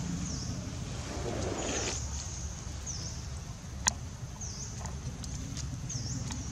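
A bird calling repeatedly in short, high down-and-up chirps about every second and a half, over a steady low outdoor rumble. One sharp click comes near the four-second mark.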